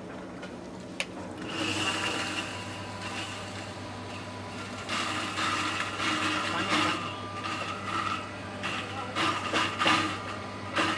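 Small electric grinding mill running, a steady motor hum with a rough grinding noise as cashew pieces are pushed down into it to make paste. The hum comes in about a second and a half in.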